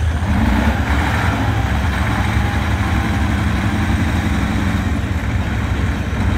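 Off-road trial vehicle's engine running with a steady low drone as it crawls through deep mud.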